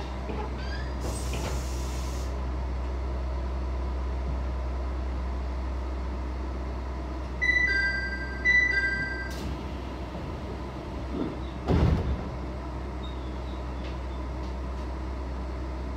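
Stopped electric train humming steadily at a station platform, with a brief hiss of air about a second in. Around seven and a half seconds in, a two-note falling door chime sounds twice, then a short hiss and thud near twelve seconds as the sliding doors close.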